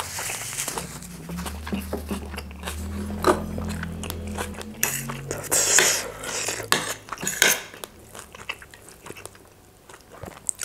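Metal fork and spoon clinking and scraping against a ceramic plate as noodles are stirred and twirled, in scattered sharp clicks.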